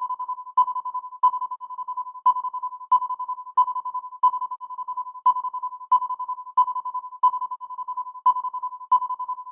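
Outro music: a simple electronic keyboard tune, like a ringtone, of short notes repeating evenly at about one and a half a second, all near the same pitch over a steady held tone.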